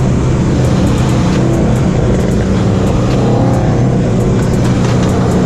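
Dodge Neon SRT-4's turbocharged 2.4-litre four-cylinder running steadily at highway cruising speed, heard from inside the cabin along with road and wind noise.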